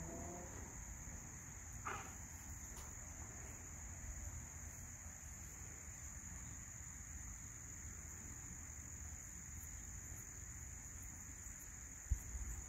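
A steady high-pitched drone of insects, such as crickets, with a faint low rumble underneath and a single short chirp about two seconds in.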